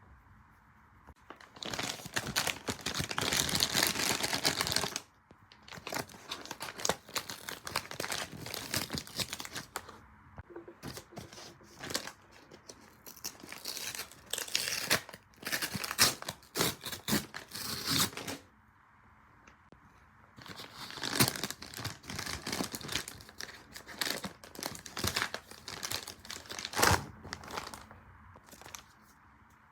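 Crinkling and crumpling, like something thin being handled and scrunched, in irregular bursts with brief pauses about five seconds in and again past the middle.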